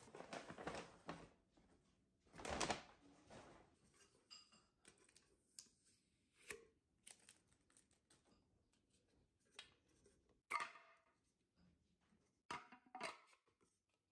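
Paper bag rustling for the first few seconds. Then faint handling noises, with a few sharper knocks near the end, as a footed bowl is tilted and moved against a wooden tabletop.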